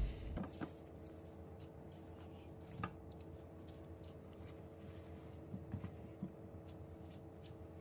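Soft taps and rustles of gloved hands moving banana peppers on a wooden cutting board, heard faintly over a steady low hum; most of the taps come between five and a half and six and a half seconds in.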